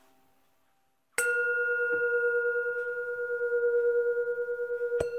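A struck bell-like metal instrument sounds once about a second in and rings on in a long, wavering tone. A brief knock comes near the end. Before the strike, faint plucked notes die away.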